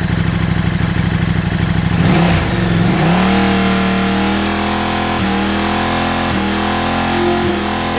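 KTM RC8R's V-twin engine idling, then revved up about two seconds in and held high. Three times the exhaust note briefly cuts out and comes back: the quickshifter cutting spark as the shift lever is pressed, showing that it works.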